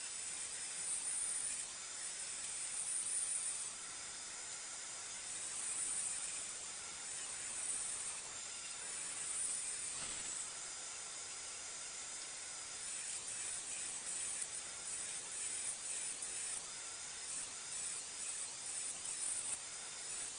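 Steady, thin, high hiss with no distinct knocks or clicks.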